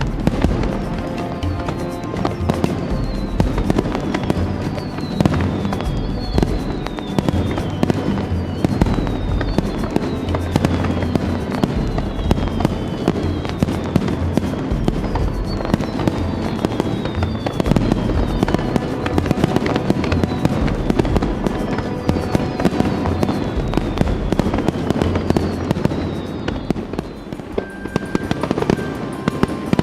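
Aerial firework shells going off in a rapid, continuous barrage of booms and crackles, with repeated falling whistles over the top. The bursts thin out near the end.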